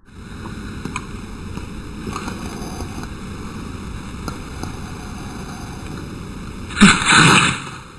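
A dog sneezes once, a sharp loud burst about seven seconds in, over a steady background rush of noise.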